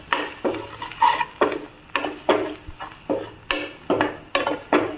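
A metal spoon stirring and scraping fried onions and ground spices around a non-stick kadai, in quick, regular strokes about three a second.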